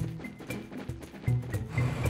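Background music with short repeated high notes over a bass line.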